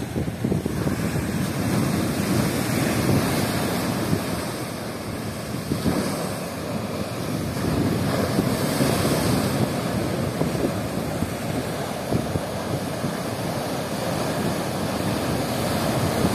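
Sea surf breaking in heavy waves against a concrete sea wall: a continuous rushing wash that swells and eases as each wave comes in.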